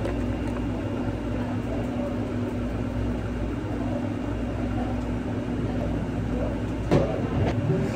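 A steady low machine hum with a constant faint tone, and a brief knock about seven seconds in.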